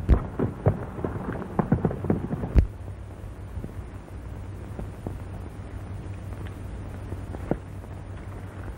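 A few irregular knocks and thuds over the first few seconds, the loudest about two and a half seconds in, then only the steady low hum and hiss of an old 1930s film soundtrack.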